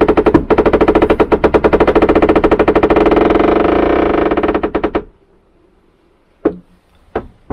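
Spinnaker sheet running through a fairlead and ring on deck, heard through the deck from a bunk below as a loud, rapid clatter that goes on for about five seconds and stops abruptly. Two single knocks follow.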